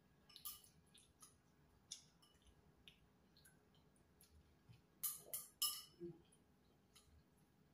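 Quiet eating sounds of soup taken with chopsticks from a small bowl: scattered small clicks, with three sharper clicks a little past five seconds in.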